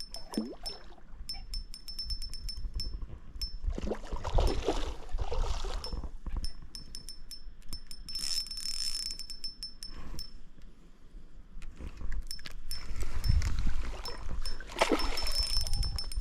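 Fishing reel clicking in quick runs of sharp metallic ticks as a hooked fish is reeled in, with several louder noisy stretches of handling in between.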